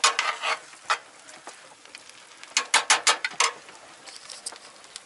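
Spoon stirring chili and rice in a non-stick frying pan on a small stove: a scrape at the start, a single click about a second in, then a quick run of six or so scrapes against the pan about halfway through.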